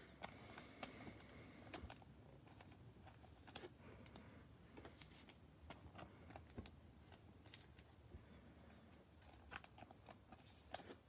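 Near silence with scattered faint light clicks and taps of trading cards being handled and set down on a table, one a little louder about three and a half seconds in.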